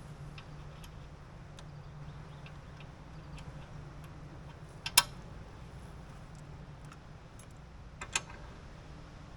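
Sharp metal clinks and ticks from plow hitch parts and tools being handled: one loud clink about five seconds in and a quick double clink near the end, over a low steady hum.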